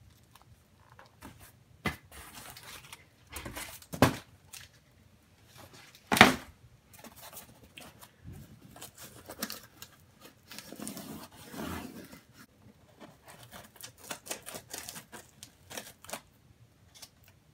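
Cardboard boxes and packaging being handled: a few sharp knocks as they are set down and moved, the loudest about six seconds in, with rustling and scraping between. Near the end a handheld cutter slits the packing tape on a cardboard box, making quick scratchy taps.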